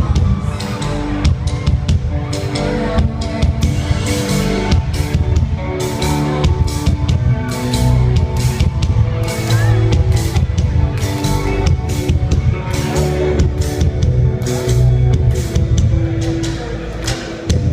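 A rock band playing live, with a drum kit beating a steady rhythm under electric guitar and bass.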